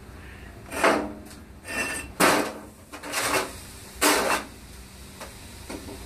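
A hot steel bar and tongs clanking and scraping against the forge opening as the bar is put back into a running propane forge: five loud clanks in the first four and a half seconds, then two faint ones. The forge's burners keep up a steady rushing sound underneath.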